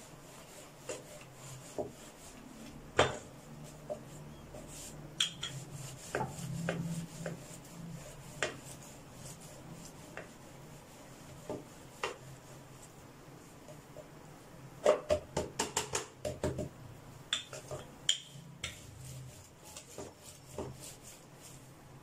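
Wooden rolling pin rolling out a stuffed radish (mooli) paratha on a floured plastic tray: soft rubbing with scattered knocks and taps of the pin against the tray, and a quick run of knocks about 15 seconds in, over a low steady hum.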